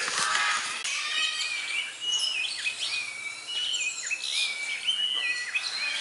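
A crowd of captive parrots and other aviary birds calling over one another: many overlapping short whistles, chirps and gliding calls coming from every direction.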